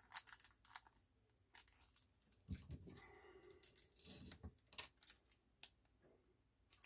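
Faint crinkling of small plastic parts bags holding cartridge mounting screws, with scattered light clicks.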